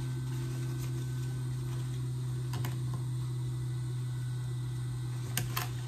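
Small scissors snipping thread ends on fabric: one short snip and, near the end, two quick snips close together, over a steady low hum.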